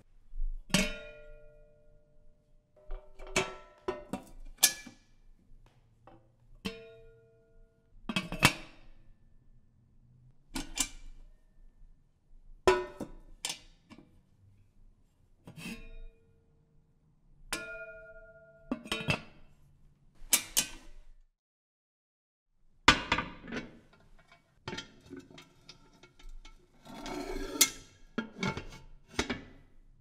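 Antique aluminium kettle being handled: a series of sharp metallic clanks and knocks every second or two, some leaving a short ringing tone. After a brief silence about two-thirds of the way through, an antique cast-iron kettle follows with denser clanks and a scraping rattle.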